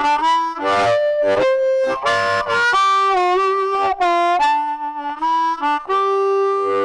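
Diatonic harmonica cupped against a bullet microphone and played amplified: a quick phrase of short notes and note-steps, ending on a long held note from about six seconds in.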